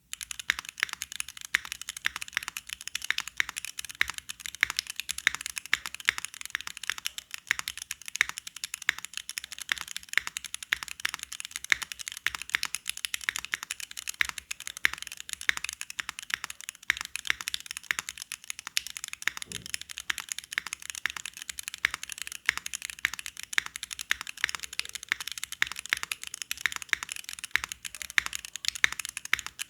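Custom Neo65 mechanical keyboard with Gateron Khonsu switches on a carbon-fibre plate, gasket-mounted with no foam, being typed on quickly and steadily: a dense, unbroken stream of keystroke clicks.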